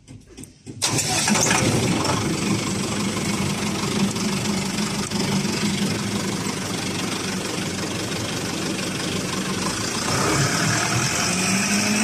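Concrete pump's engine started with the key switch: it catches suddenly just under a second in and then runs steadily, a little louder from about ten seconds in.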